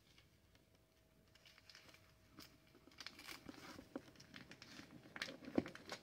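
Quiet handling of tape and a doll's denim dress: faint rustling and small clicks, starting about two seconds in and getting busier near the end.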